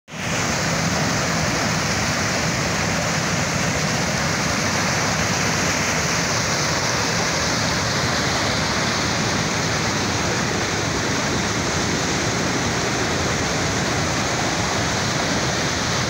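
Fast mountain river in whitewater, pouring out over a concrete weir and down a rocky bed: loud, steady rushing water with no change in strength.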